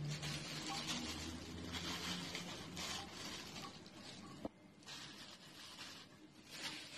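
Soft rustling and crinkling of plastic cling film lining a muffin tin as prawns are handled into the cups, with one sharp click past the middle.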